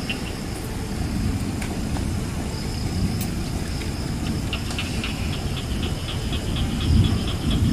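Diesel locomotive approaching slowly, its engine a steady low rumble that swells briefly near the end. In the second half a rapid high ticking repeats about five times a second over it.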